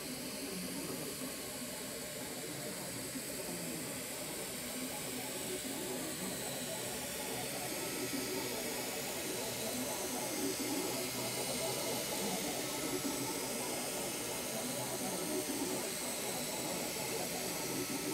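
Ultimaker 3D printer printing: a steady whirring hiss from its cooling fans, with a faint high whine from the stepper motors that rises and falls as the print head moves over the bed.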